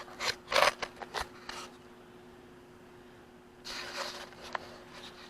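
Short bouts of rubbing and scraping handling noise with a few clicks, in two clusters: one in the first second and a half and another about four seconds in, over a faint steady hum.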